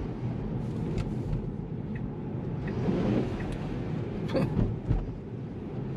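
Steady tyre and road noise heard from inside a Tesla's cabin while driving on a rain-wet road, with a few brief knocks about a second in and twice more near the end.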